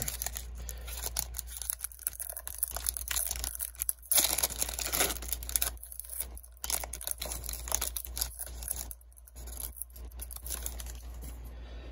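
Foil wrapper of a Panini Prizm trading-card pack being torn open and crinkled in the hands, with irregular crackling and rustling and the loudest rip about four seconds in.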